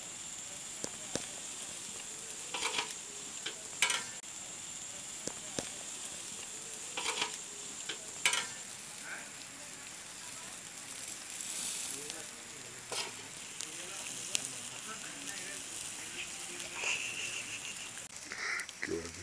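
Whole marinated koral fish (barramundi) sizzling on a wire grill over burning charcoal, with a steady hiss broken by sharp crackles and pops from the fire.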